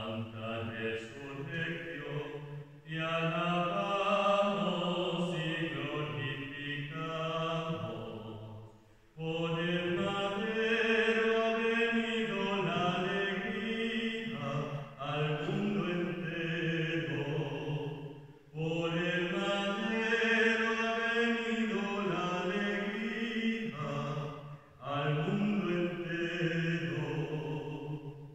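Liturgical chant sung at Lauds, in several long phrases with brief pauses between them.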